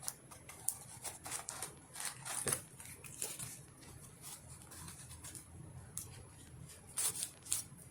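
Homemade cardboard shotgun being handled and its cardboard pump worked: a scatter of faint scrapes, rubs and light clicks, with a few sharper clicks about a second in and near the end.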